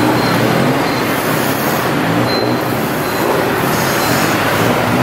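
A city bus's engine running steadily with traffic and road noise, heard from inside the moving bus.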